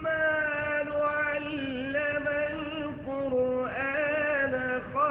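A male Quran reciter chanting in the melodic tajweed style, holding long ornamented notes that waver up and down in pitch.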